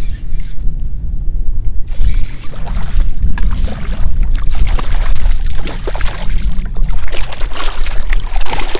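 A hooked redfish thrashing and splashing at the surface beside a kayak as it is brought to the landing net, with dense splashes from about two seconds in, over a steady low rumble.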